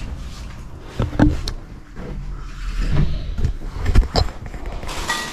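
Several separate knocks and clunks over a low background rumble.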